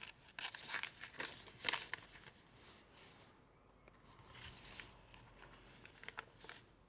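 Paper rustling and pages of a handmade paper journal being handled and turned, in a series of short rustles with a brief pause about halfway through.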